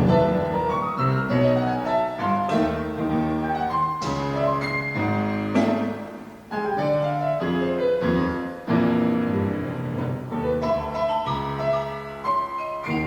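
Chamber music from a quintet, with piano to the fore playing runs of notes that climb and fall, and the music briefly dropping away about six and a half seconds in before coming back.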